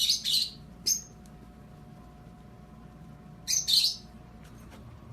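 A few short, high chirps: one at the start, another about a second in, and a pair between three and four seconds in.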